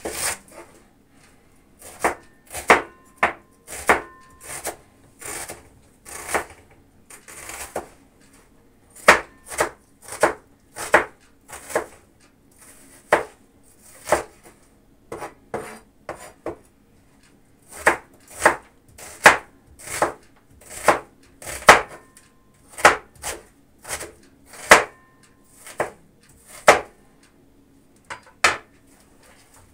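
Kitchen knife chopping an onion on a wooden cutting board: sharp, irregular knocks of the blade on the board, mostly one or two a second, with short pauses between runs of cuts.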